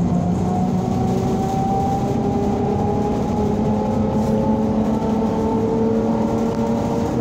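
ZiU-682V-012 trolleybus's electric traction motor whining inside the passenger cabin, its pitch slowly rising as the trolleybus gathers speed, over a steady low rumble of road noise.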